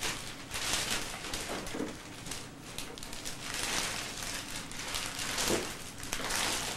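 Gift wrapping paper rustling and crinkling in irregular bursts as presents are handled and unwrapped.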